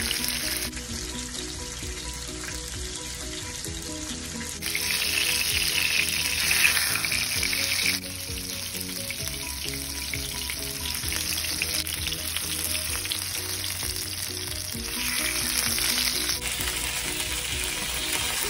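Seasoned chicken breasts frying in hot oil in a pan, a steady sizzle with oil popping.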